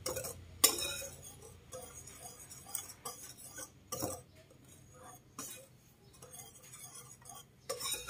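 Metal wire whisk stirring dry flour mix in a ceramic bowl, its wires scraping and tapping against the bowl in irregular clinks, the sharpest about half a second in.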